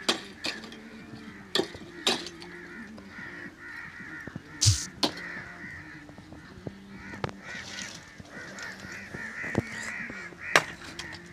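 Fired bricks knocking sharply against one another as they are handled and stacked, a clack every second or two, over continuous bird calls.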